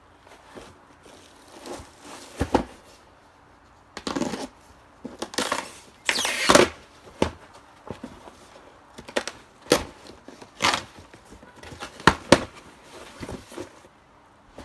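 Irregular handling noises while the new wheel is fetched and got out: scattered knocks and clicks with a few longer scraping and rustling sounds, the longest a few seconds in.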